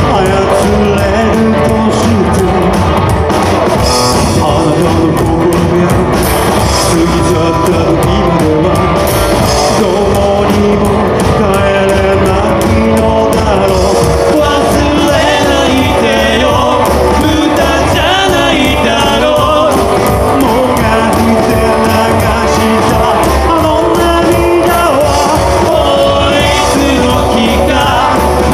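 Rockabilly band playing live, with a lead singer over guitar and drums.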